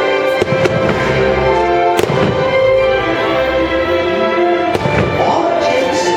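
Fireworks shells bursting with several sharp bangs, the loudest about two seconds in, over loud orchestral music from a fireworks show soundtrack.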